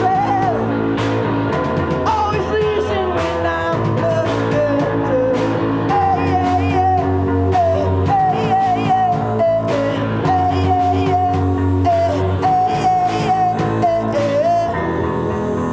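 A live rock band playing, with electric guitar, bass and drums under a sung vocal line and a steady drum beat; the band eases off near the end.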